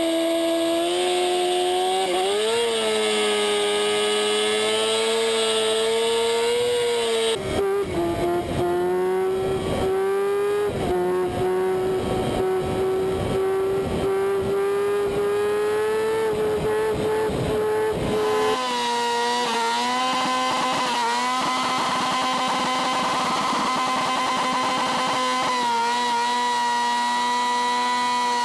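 Motorcycle engine held at high, steady revs, its pitch stepping up or down a few times.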